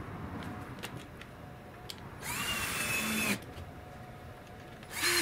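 Ridgid cordless drill/driver driving screws into a wooden hold-down board: the motor whines up and runs steadily for about a second, then a second screw starts being driven near the end. A few faint clicks of handling come before the first.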